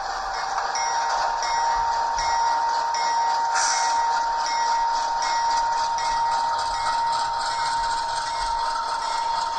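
ESU LokSound 5 sound decoder in a model GE P42 Genesis locomotive playing its diesel sound through its small speaker: a steady engine hiss with a high steady tone that comes in just under a second in, and a bell-like ring repeating about every three-quarters of a second.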